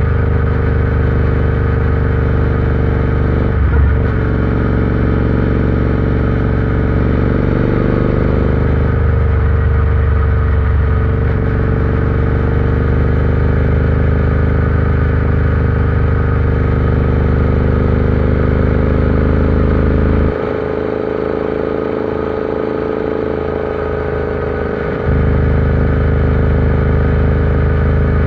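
Royal Enfield Interceptor 650's 648 cc parallel-twin engine running steadily while the bike is ridden, its pitch holding nearly constant. Partway through, the deep low end of the engine sound drops away for about five seconds, then comes back.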